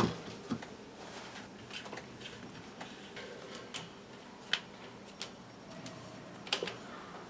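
Light clicks and taps at irregular intervals, seven or so, the sharpest about four and a half and six and a half seconds in, over a faint steady hum: small plastic fan parts being handled and fitted.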